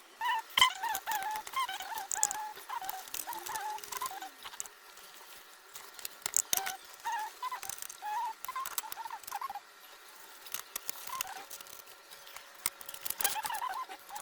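Small birds chirping in quick, twittering calls, with scattered sharp clicks and taps.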